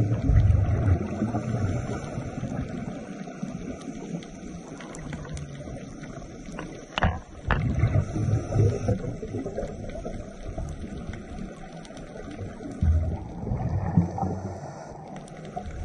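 Muffled underwater noise picked up by a submerged camera, with low rumbling surges of bubbles three times, at the start, about halfway and near the end.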